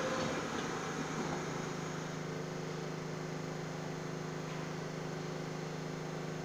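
Subway train standing at the platform with its doors closed, its on-board equipment giving a steady low hum with several held tones that settle in about a second and a half in.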